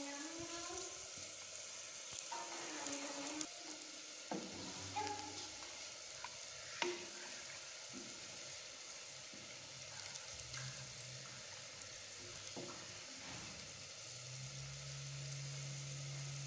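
Pot of water with rice and vegetables boiling: a steady bubbling hiss, with a few sharp clicks of a spoon stirring against the aluminium pot.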